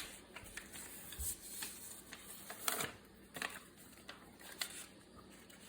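A sheet of paper being folded in half and creased, with scattered crinkles and taps of paper being handled.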